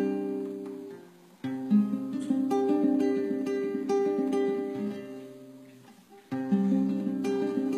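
Solo nylon-string guitar playing a jazz ballad in plucked chords. The phrases ring out and fade almost to silence twice, about a second in and again near six seconds, before the next chord sounds.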